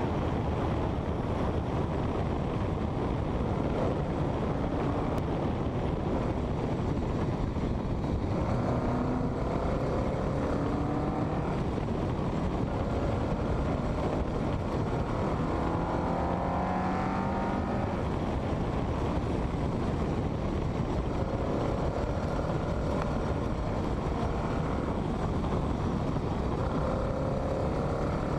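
Westfield kit car's engine heard from on board at speed, its pitch climbing several times as it accelerates under a steady rush of wind and road noise.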